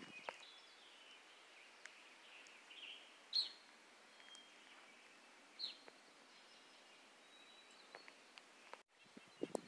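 Quiet forest with a few faint, short bird chirps scattered through it, the loudest about three and a half seconds in and a falling one near six seconds.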